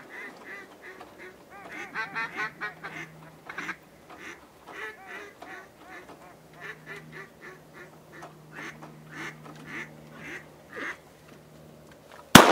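Rapid series of mallard-style quacks and chuckling duck calls, coming in quick runs of short notes. Just before the end a single loud shotgun blast cuts in, the loudest sound, followed by a ringing echo.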